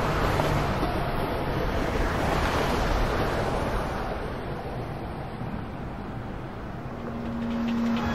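Wind buffeting the microphone: a steady rushing noise, heaviest in the low end, that eases a little past the middle and builds again near the end.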